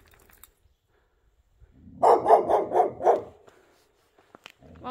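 A dog barking at a passer-by: a quick run of about five barks about two seconds in, with another run of barks starting near the end.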